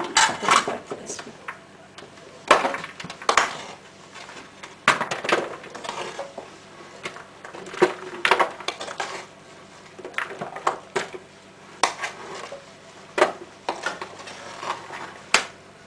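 Utensil scraping and knocking against a cooking pot as raw stew ingredients are spooned out into a baking tray: irregular clinks and scrapes, about one or two a second.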